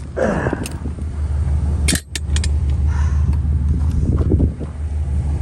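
Metallic clinks and rattles of tire-changing tools being handled over a steady low rumble of a car running.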